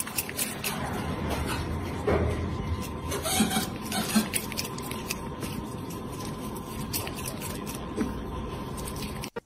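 Ring-tailed lemur eating a piece of fruit: chewing with many small clicks over a steady background hiss and a faint steady tone, with a few short pitched sounds in the first half.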